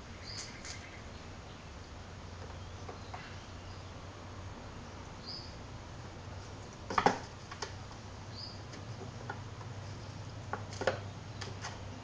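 A small rock clattering on stone paving as kittens bat it about: scattered sharp clicks and knocks, the loudest a quick cluster about seven seconds in and a few more near the end, over a low steady hum.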